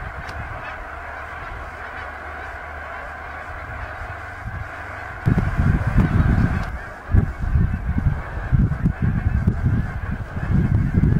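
A huge flock of geese calling: a dense, continuous chorus of honking from hundreds of birds. From about five seconds in, a louder low rumble comes and goes in gusts over it.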